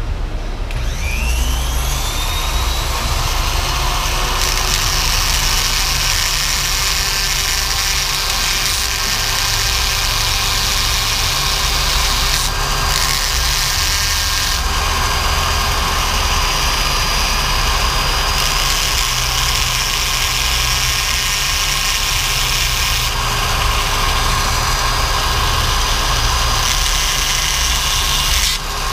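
Flex-shaft rotary tool spinning up with a rising whine about a second in, then running steadily as its small bit grinds at the welded-on cap of a stock LS truck fuel injector's tip.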